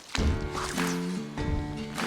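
Background music cuts in suddenly just after the start, with held notes changing pitch every fraction of a second.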